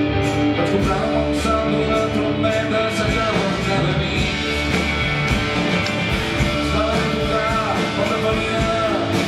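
Live pop-rock band playing an instrumental stretch between sung lines: guitars and drums over a steady beat.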